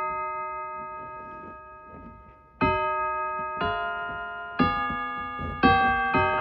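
Electric keyboard playing single notes on one of its built-in voices. A note dies away over the first couple of seconds, then new notes are struck about once a second, each ringing on and fading, with the notes coming faster near the end.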